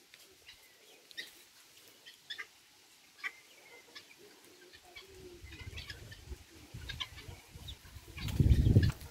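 A flock of helmeted guineafowl foraging and giving scattered short clucking calls. A loud low rumble on the microphone comes near the end.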